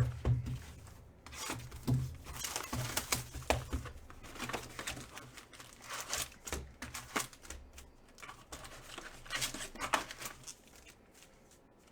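Plastic wrapping on a box of trading cards being torn and crinkled by hand, with irregular crackles and light handling knocks that die down near the end.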